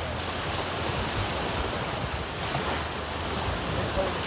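Lake Michigan surf breaking on a sandy beach, a steady wash of waves, with wind rumbling on the microphone.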